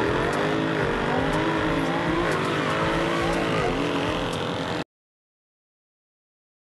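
A car engine revving, its pitch rising and dropping back several times, with faint ticks about once a second; it cuts off abruptly about five seconds in, leaving silence.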